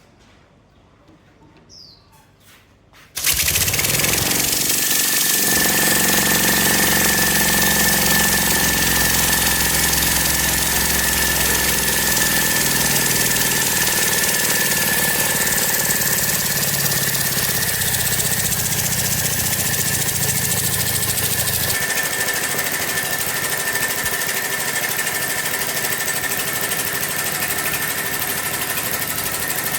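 Homemade steam engine, built from a refrigerator compressor, comes on suddenly about three seconds in and runs steadily. It is a loud hiss with a steady high whine over a lower running rumble.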